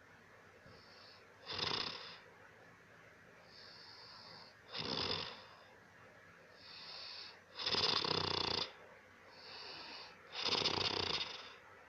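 A person snoring heavily: four loud snores about every three seconds, each preceded by a fainter, hissing breath.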